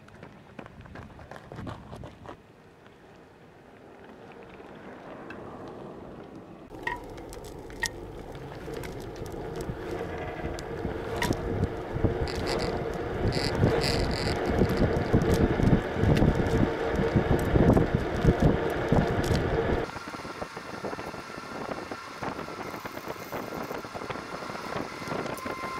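Kick scooter's wheels rolling over the road with wind on the microphone and a steady hum, growing louder from about seven seconds in; the sound changes abruptly about twenty seconds in.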